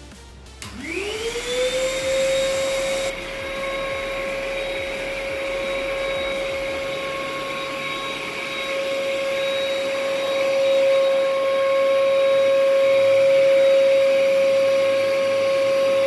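Denpoo HR-8003 vacuum cleaner motor switching on, its whine rising to a steady pitch over about a second. It then runs steadily while the floor brush is worked over a plush carpet.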